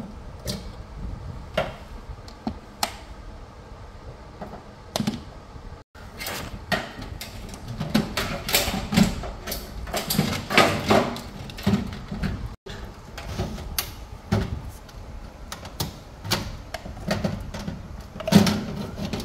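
Plastic wiring-harness connectors being unlatched and pulled off a washing machine's main control board: a run of irregular sharp clicks and plastic rattles, coming thicker and faster in the second half.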